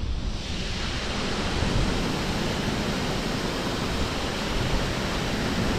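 Steady rushing of water pouring through open lock gates and churning in the outflow below. The hiss fills in over the first second or two, then holds even.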